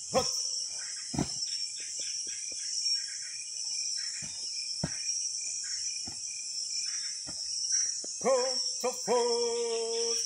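Steady high-pitched chorus of crickets and other insects, with scattered sharp knocks. Near the end a voice holds several sustained pitched notes.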